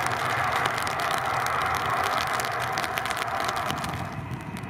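ATR 72-500's twin turboprop engines and propellers running as it rolls out on the runway after landing: a steady rushing drone that fades away near the end.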